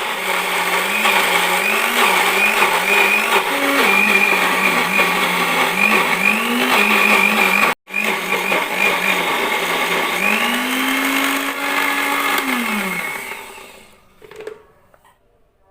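Electric blender grinding a thick, densely packed spice paste of chilies, shallots, garlic, ginger, turmeric, candlenut and lemongrass with a little water, its motor pitch wobbling up and down as the load shifts. It cuts out for an instant about 8 s in, runs on, rises in pitch about 10 s in, then winds down and stops around 13 s in.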